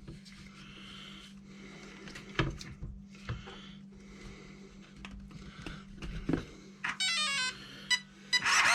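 Traxxas Maxx RC truck powered up with its stock steering servo: a steady low electrical hum with short bursts of the servo swiping the steering, which is very slow. About seven seconds in, a quick run of stepped electronic beep tones.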